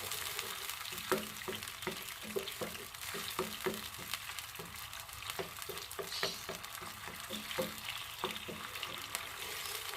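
A spatula stirring a green-chili coconut-milk sauce in a pan on the stove, with many short clicks and scrapes of the utensil against the pan over a steady hiss from the hot pan.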